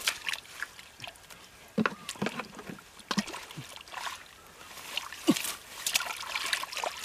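Hands splashing and sloshing in a shallow muddy puddle, making irregular short splashes and wet slaps while groping for small fish.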